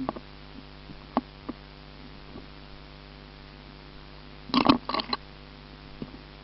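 Handling clicks and knocks as a part is fitted by hand: a few light clicks, then a short clatter of louder knocks about four and a half seconds in, over a steady electrical hum.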